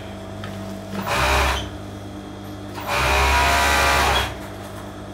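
Industrial sewing machine stitching in two runs, a short one about a second in and a longer one of about a second and a half in the middle, over a steady hum.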